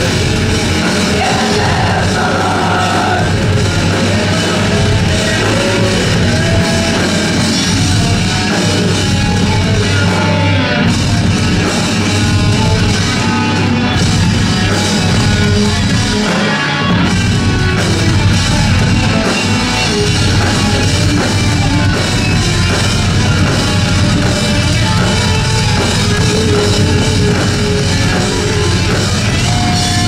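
A live rock band playing loudly and continuously: electric guitars over a drum kit.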